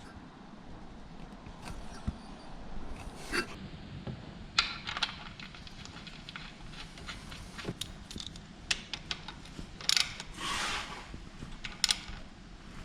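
Scattered clicks, light metallic knocks and a short scrape of hands and tools handling parts on a mini excavator's engine during an oil and filter change.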